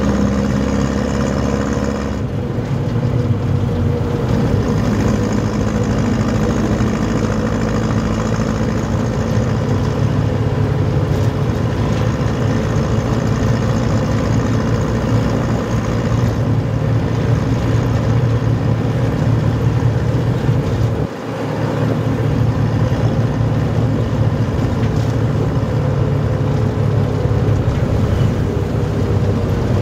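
Mitsubishi 4D30 four-cylinder diesel engine of a jeepney running on the move. Its note shifts about two seconds in, and about twenty seconds in it dips briefly before picking up again.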